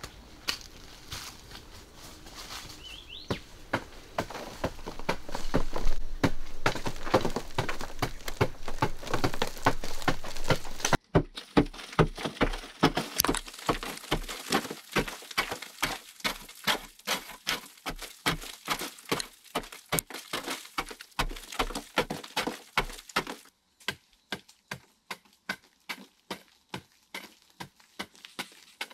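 A hand digging tool striking and scraping into dry earth in steady repeated blows, about two a second for much of the time, with the sound changing abruptly twice.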